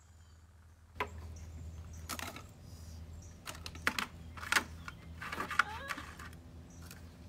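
About half a dozen light clicks and taps, unevenly spaced, over a low steady hum.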